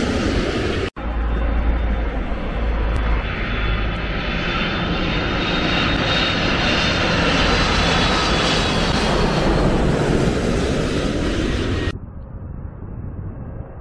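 Loud jet-engine noise of airliners passing low overhead on landing approach, with a high whine building toward the middle and later part. It breaks off abruptly just under a second in and starts again, then drops suddenly to a much quieter background near the end.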